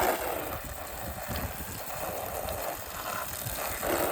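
Soft-wash sprayer spraying a 6% chlorine mix onto a surface: a steady hiss of spray.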